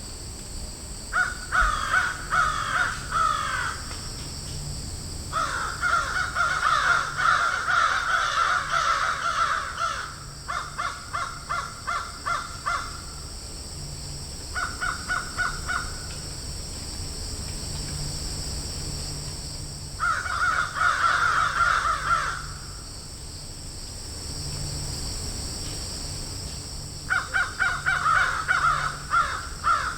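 Crows cawing in a field: several bouts of rapid, repeated caws with pauses of a few seconds between them, over a steady high-pitched drone.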